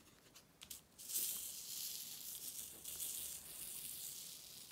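Square diamond-painting drills rattling in a small sorting tray as it is shaken to settle them. A few light clicks come first, then a continuous high rattle from about a second in.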